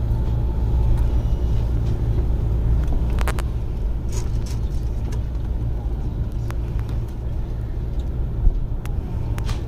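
Electric commuter train running on the line, heard from inside the train: a steady low rumble with a few sharp clicks from the wheels on the track.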